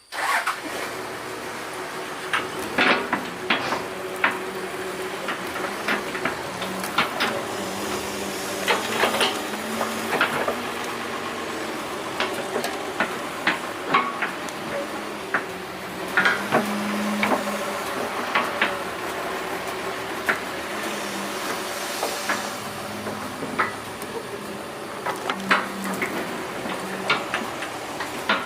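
Doosan 140 excavator running steadily while it digs, with many irregular sharp clanks and knocks of the bucket working against soil and stones.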